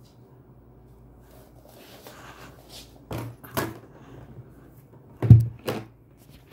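Knocks and bumps from a reborn doll being set down into a plastic baby bathtub: a pair of knocks a little past halfway, then a louder pair near the end.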